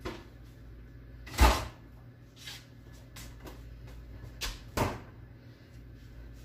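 Two knocks in the kitchen, the louder one about a second and a half in and a second about three seconds later, over a steady low hum.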